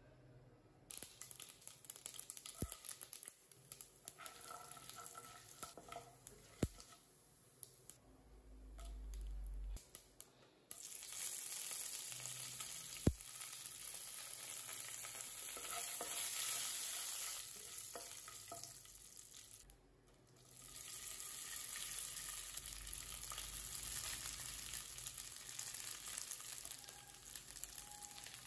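Tempering frying in hot oil in a nonstick pan: mustard seeds crackling with a few sharp pops, then a louder, steady sizzle once urad dal, dried red chillies and curry leaves are frying. The sizzle breaks off briefly about two-thirds of the way through, then carries on.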